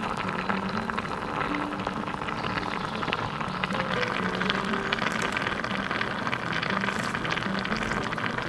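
Tomato and vegetable broth bubbling at a boil in a miniature steel pot: a dense, steady crackle of small pops. Soft background music plays underneath.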